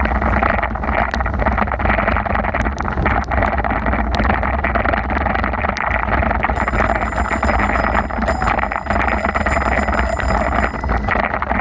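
Steady wind buffeting the microphone and the rush of rain and wet road noise while cycling in heavy rain. Just past the middle a high-pitched bell rings rapidly for about four seconds.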